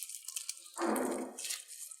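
Slime being squeezed and worked by hand: fine crackling and clicking, then a louder, lower squish lasting about half a second, about a second in.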